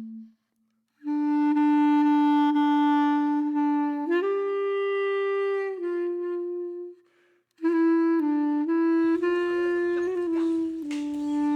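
Background music: a single reed woodwind plays a slow melody of long held notes, with brief pauses near the start and about seven seconds in, and quicker note changes after the second pause.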